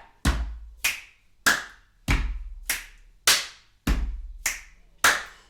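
Body percussion in a steady three-beat pattern: a low thump on the first beat, then two sharper hand claps, about every 0.6 s, three bars in all.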